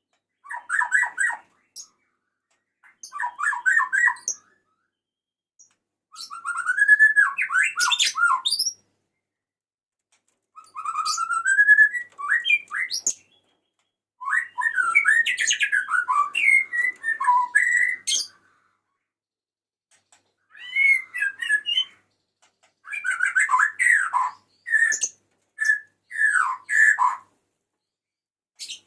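Male white-rumped shama singing, calling to a female. Its song comes in about seven varied whistled phrases with gliding notes, separated by short pauses.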